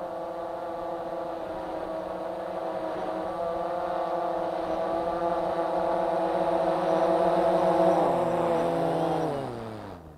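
DJI Phantom 3 Standard quadcopter's motors and propellers humming steadily, growing louder as it comes down close overhead. Near the end the motors spin down with a falling pitch and stop as the drone is caught by hand.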